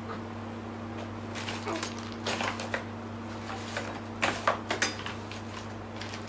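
Baby rocker parts being handled during assembly: two short clusters of knocks and clatters, about a second and a half in and again around four seconds in, over a steady low hum.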